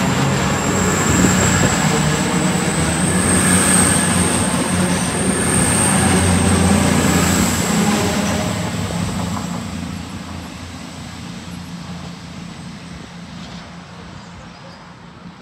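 A diesel train running past, engine and wheel noise loud for the first several seconds, then fading away steadily as it recedes, with a high steady whine above it.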